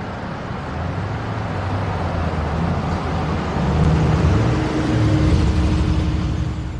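Car engine running with road and traffic noise, a low rumble that grows louder toward the middle and eases off near the end.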